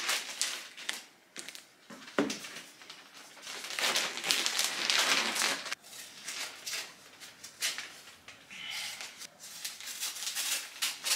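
Gift-wrapping paper rustling and crinkling as it is pulled over and folded around a large cardboard box, in irregular handling noises that are fullest a few seconds in.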